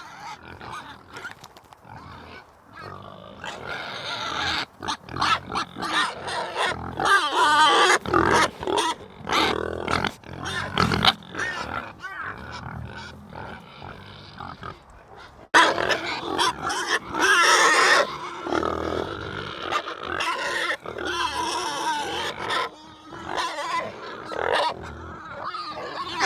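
Animal calls, loud and irregular, with wavering pitch; the sound changes abruptly about fifteen seconds in.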